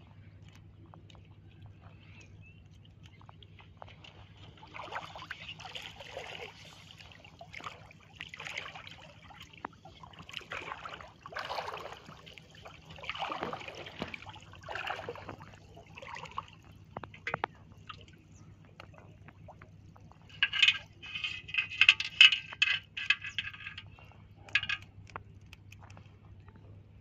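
Shallow flood water sloshing and splashing in bursts every second or two as hands pull a fish net and the fish caught in it through the water, over a low steady hum. About twenty seconds in comes a louder buzzing, rapid-rattling sound lasting about three seconds.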